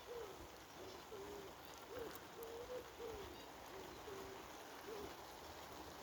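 Faint pigeon cooing: a string of soft, low coos through the first five seconds, some notes held level and some sliding up or down in pitch.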